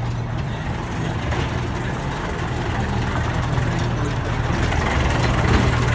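Zoo train's replica 4-4-0 'General' locomotive passing close by, its engine giving a steady low drone that grows louder as it nears.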